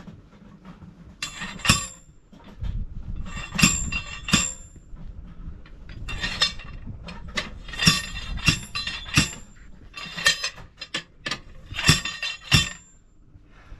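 Repeated sharp metal-on-metal blows with a ringing clink, about a dozen of them, irregularly spaced and often in pairs: a tool being struck to break a truck tyre's bead away from the rim.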